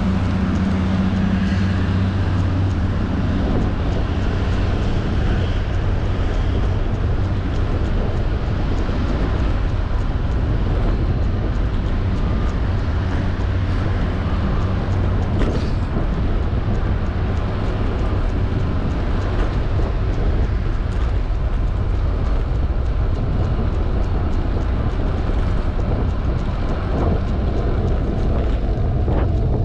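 Steady rolling noise of a fixed-gear bicycle's tyres on asphalt, with air rushing over an action-camera microphone. A low hum sits in it for the first two seconds and then fades.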